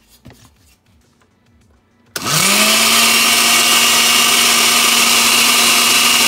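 Countertop blender with a glass jar switched on about two seconds in, after a few small clicks: the motor spins up quickly, rising in pitch, then runs steadily and loudly, blending a thin cake batter.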